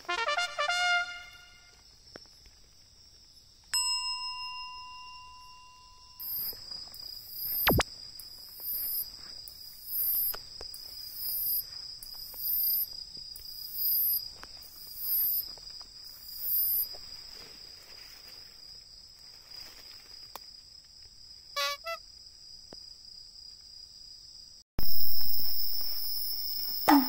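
Two short edited sound effects come first: a falling chime, then a held horn-like note. Then an umaoi katydid (Hexacentrus) calls, a very high hissing phrase repeated about nine times, once every second and a bit, over a steady high insect chorus before it stops. A loud hit that fades out comes near the end.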